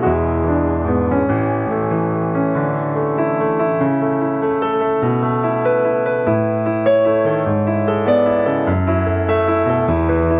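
Background piano music, its notes and chords changing about once or twice a second.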